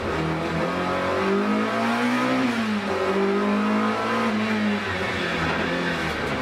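BMW E30 M3 2.5 Group A race car's four-cylinder engine heard from inside the cabin, running hard up a mountain hillclimb. The revs climb to a peak about two and a half seconds in, drop, hold high, then fall again about five seconds in.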